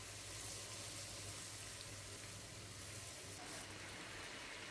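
Faint, steady sizzle of porras (thick churros) frying in hot oil.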